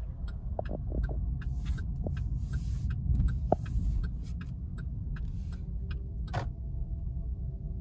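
Low rumble of a car driving slowly, heard inside its cabin, with a run of light, evenly spaced ticks about two to three a second that stop about six and a half seconds in.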